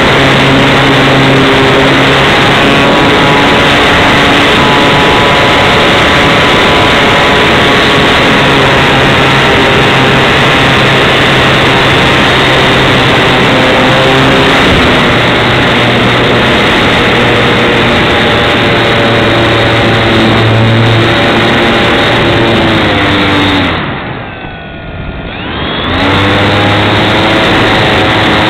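Tech One Extra 330 RC aerobatic plane's motor and propeller running in flight, heard from a camera on the wing with wind rushing past, the pitch shifting with the throttle. About 24 s in, the throttle is cut: the sound drops and falls in pitch, then about two seconds later it climbs back up as power comes on again.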